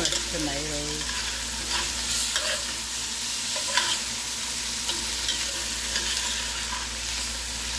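Onions, bell peppers and freshly added diced tomatoes sizzling in a black cast-iron pot. A metal spoon stirs them and scrapes now and then across the iron.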